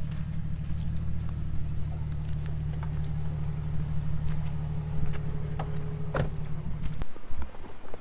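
An SUV engine idling close by, a steady low rumble, with a few light clicks and knocks over it. The rumble cuts off suddenly about seven seconds in.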